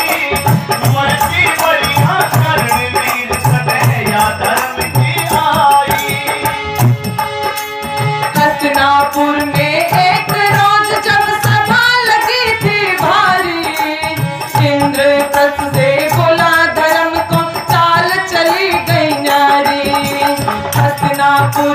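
Devotional bhajan: a woman singing with harmonium accompaniment, a dholak beating a steady rhythm underneath, and the dholak player joining on vocals. The harmonium and voice hold long notes that step up and down.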